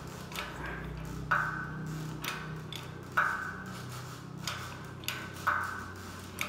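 Sharp metallic clicks with short ringing tails, unevenly spaced about a second apart, from the chain pull-test rig as the load on the chain climbs toward five ton. A steady low hum runs underneath.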